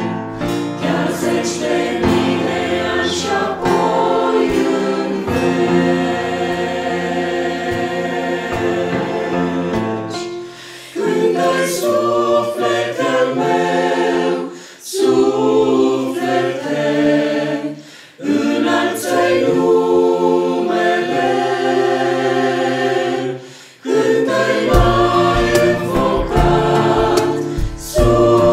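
Mixed choir of men's and women's voices singing a hymn in several phrases, each ending in a brief breath pause.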